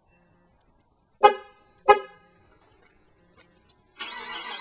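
A car horn, the new Chrysler 300's, gives two short toots about half a second apart, sounding on its own as if the car were haunted. Music starts near the end.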